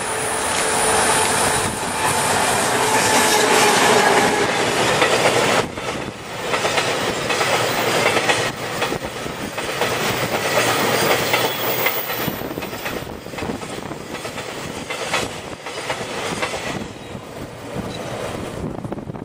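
EH200 electric locomotive and a long freight train of tank wagons passing close by, with a whine during the first few seconds as the locomotive goes past. Then a steady clickety-clack of the wagons' wheels over the rail joints, fading near the end as the last wagons go by.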